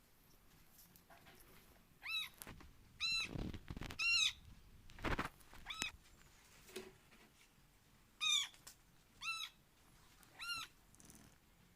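Kitten mewing: about seven short, high-pitched mews, each rising and falling, with a couple of soft thumps among them.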